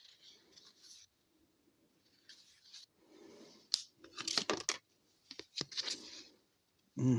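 Hands handling hockey cards and their pack wrappers: soft sliding and rustling, with louder bursts of sharp crinkling and scraping about halfway through.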